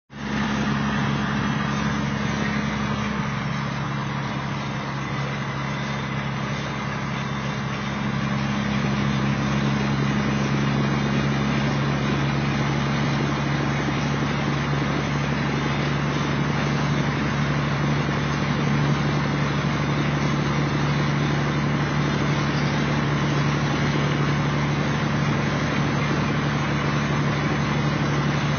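Kenworth T600A semi truck's Caterpillar diesel engine running steadily at highway speed, heard from inside the cab over road and tyre noise. A steady low drone that grows a little louder about eight seconds in.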